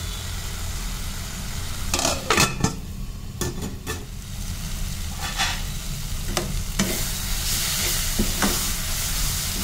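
Fenugreek-leaf stir-fry sizzling in a pan, with a few sharp metal clanks about two seconds in. In the second half a spatula scrapes and stirs the greens against the pan, and the sizzle is louder.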